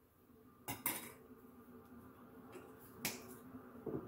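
A few sharp, irregularly spaced clicks and light taps as a bottle of MCT oil and other items are handled and set down on a kitchen countertop beside a coffee mug.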